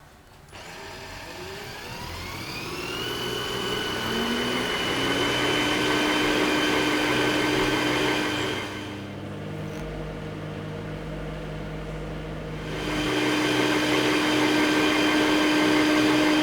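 Small household-appliance electric motor spinning up with a rising whine, then running steadily. About nine seconds in it slows to a lower, quieter hum, and about thirteen seconds in it speeds up again.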